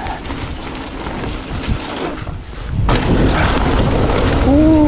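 Wind buffeting the microphone and mountain bike tyres rolling over a trail thick with dry leaves and sticks, a steady low rumble that grows louder about three seconds in as the bike picks up speed. Near the end a short pitched sound rises and falls.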